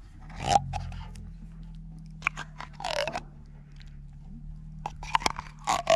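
Scraping and clicking of a utensil against a cooking pot of pasta, in short irregular strokes over a steady low hum.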